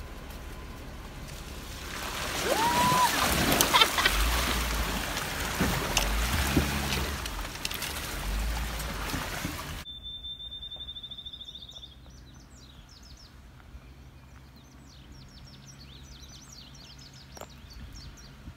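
A loud rushing noise with low rumbles, which cuts off suddenly about ten seconds in. Then birds sing, first one held high note and then many quick chirps, over the faint steady hum of a distant Jeep Wrangler idling.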